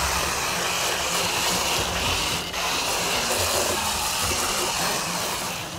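Garden hose spray nozzle jetting water onto an aluminium boat hull and outboard motor, rinsing the salt off: a steady hiss of spray that briefly dips about two seconds in.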